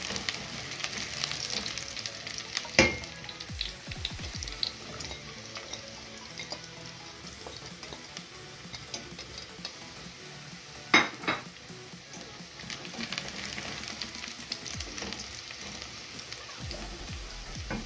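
Chopped onions sizzling in hot oil in a pan as they are stirred. Sharp knocks against the pan come about three seconds in and twice around eleven seconds.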